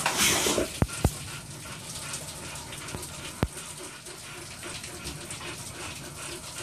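Steady rain falling, a moderate afternoon shower, with a few soft knocks about a second in and again a little past three seconds.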